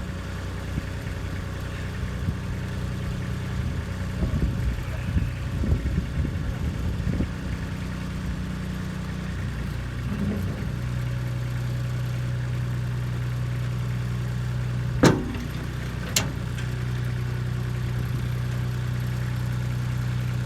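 Kubota B2630 compact tractor's three-cylinder diesel engine running steadily, its note shifting about ten seconds in. Clattering knocks come around four to seven seconds in, and two sharp bangs about fifteen and sixteen seconds in.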